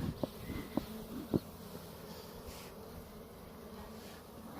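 Honeybee swarm buzzing steadily on the ground while being driven with smoke toward a hive box. A few short soft knocks fall in the first second and a half.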